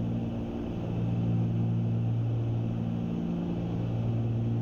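Cabin sound of a Cessna 310Q's two piston engines and propellers at cruise: a steady hum with a few fixed low tones over even engine noise.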